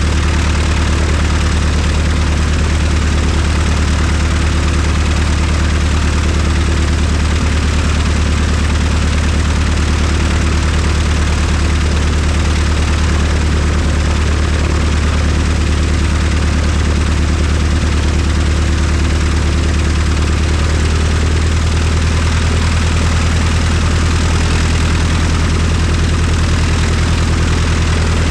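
Piper Arrow's piston engine and propeller running steadily at low idle on the ground, a loud, even low hum. The engine note shifts slightly about two-thirds of the way through, around when the plane starts to taxi.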